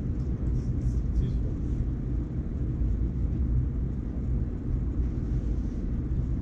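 Room tone: a steady low rumble with no speech, and a few faint ticks about a second in.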